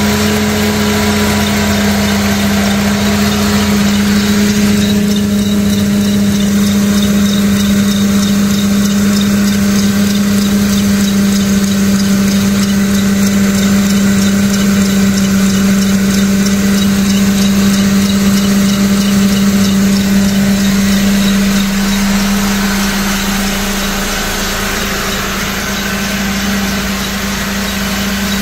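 Mercedes-Benz M271 supercharged four-cylinder engine idling steadily with an even hum, running shortly after its first start on a newly fitted timing chain kit.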